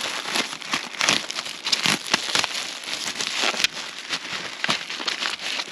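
Plastic packaging crinkling and rustling as it is handled and opened, an irregular run of many small crackles.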